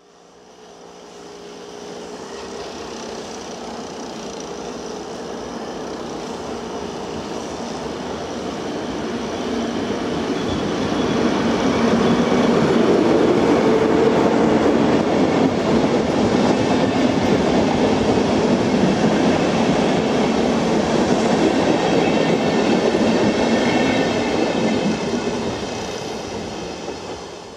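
DB class 115 electric locomotive hauling two ICE intermediate cars past at speed. The rumble of wheels on rail builds as the train approaches, is loudest for about a dozen seconds as it passes, and fades near the end, with steady whining tones over it.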